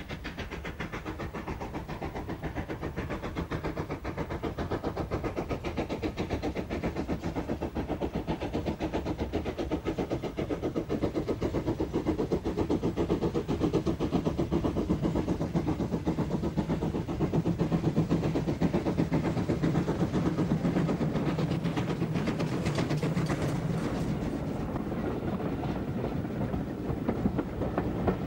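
GWR 0-6-0 pannier tank steam locomotive hauling a passenger train, its exhaust chuffing in a steady rhythm and growing louder as it approaches.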